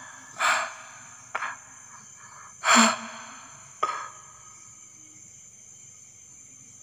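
A man breathing out hard twice in breathy huffs, with sharp mouth clicks between them, then only faint room tone for the last few seconds.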